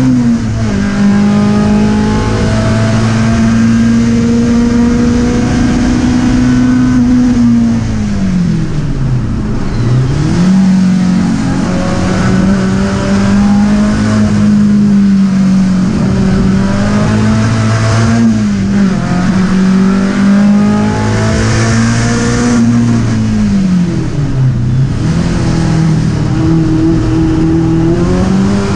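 A Skoda 130 RS race car's rear-mounted four-cylinder engine is heard from inside the cabin, run hard with the revs held high. About a third of the way in the revs fall away steeply as the car slows for a corner, then climb again. Shorter dips in revs come later.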